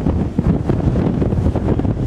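Wind buffeting the microphone in rapid gusts, a heavy low rumble that rises and falls.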